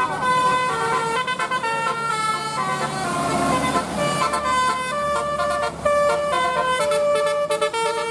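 Bus 'telolet' multi-tone air horn playing a melody: a run of held notes that step up and down in pitch.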